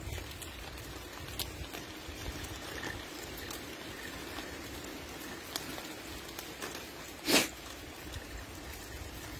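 Footsteps and rustling on a dirt path during a walk with a leashed dog: a steady rustling haze with scattered light clicks, and one short, loud burst about seven seconds in.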